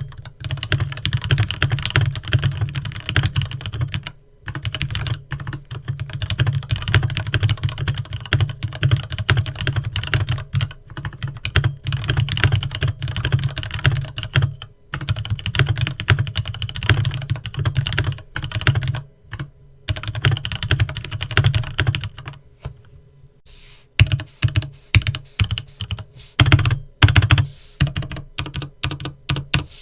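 Leopold FC660M 65% mechanical keyboard with linear Cherry MX Red switches being typed on in fast, continuous runs, broken by a few short pauses. Near the end the keystrokes come slower, one by one.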